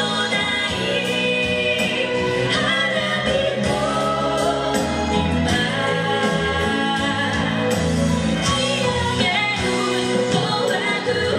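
Live pop song: voices singing over accompaniment with a bass line and a steady beat.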